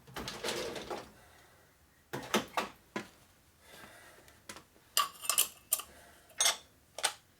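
Metal hand tools and engine parts clinking and clanking as a stuck part is worked loose: a scraping rattle in the first second, then sharp clanks around two to three seconds in and a cluster of them near the end.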